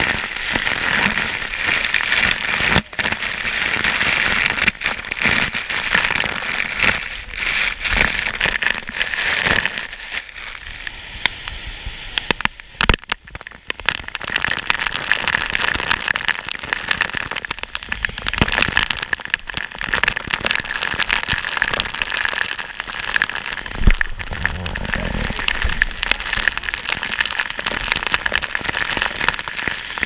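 Heavy waterfall spray pelting the camera up close: a loud, dense crackling hiss like driving rain, easing for a few seconds about ten seconds in.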